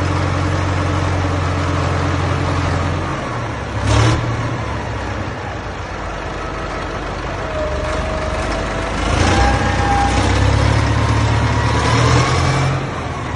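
Old Caterpillar 621 wheel tractor-scraper's diesel engine running, with a short loud burst about four seconds in. After that the engine revs up, and rising whines sound over the engine note in the second half.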